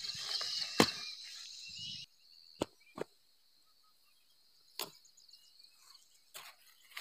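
Squash vine stems being snapped off by hand: several short, sharp snaps one to two seconds apart, with soft leaf rustling in the first couple of seconds.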